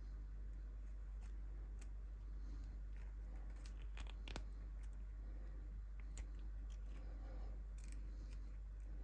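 Faint scratchy ticks and rubbing of thin enamelled copper wire being pulled through and wound onto a small ferrite toroid core, with a few sharper clicks about four seconds in, over a steady low hum.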